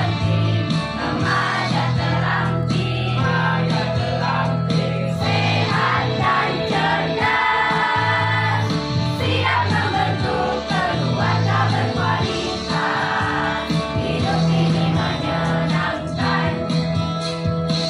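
Choir singing with instrumental accompaniment, steady bass notes under the voices.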